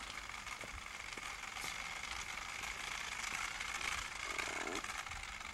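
Steady hiss with a thin high whine, under scattered light clicks and rattles from the small wheels and frame of a child's gait trainer walker rolling across the floor.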